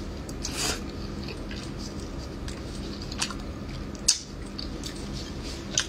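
Wet mouth smacks and sucking sounds from eating a piece of soft stewed fish, with a few short sharp clicks of the lips.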